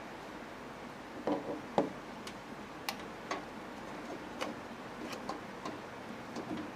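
Light, irregular clicks and taps of hands and tools working on a desktop computer's parts while a graphics card is being removed, with the sharpest knocks about a second and a half in.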